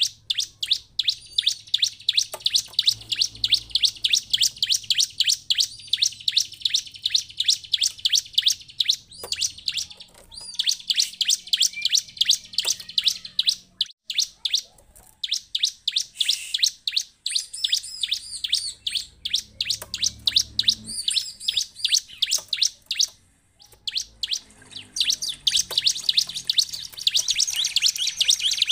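Ciblek (bar-winged prinia) calling: fast runs of sharp, high chirps, about five a second, breaking off briefly a few times. These are lure calls (pancingan) meant to set other ciblek singing.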